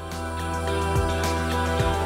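Background music: sustained notes over a steady bass, swelling in level over the first second.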